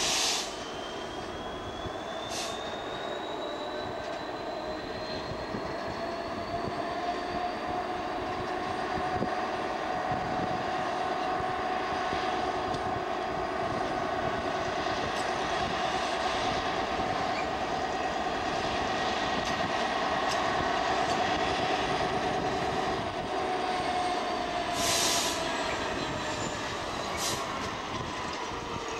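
Class 66 diesel locomotive's two-stroke EMD V12 engine working under load as it pulls a container train slowly away. Its steady engine note rises in pitch early on, holds, and drops back near the end. A few brief sharp high-pitched noises come twice near the start and twice near the end.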